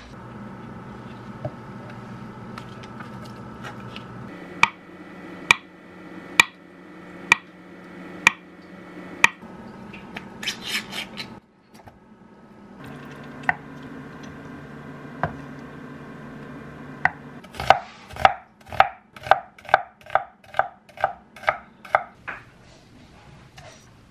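Kitchen knife chopping on a wooden cutting board: evenly spaced strikes about one a second, a few single cuts, then a fast run of about a dozen chops near the end, over a steady low hum.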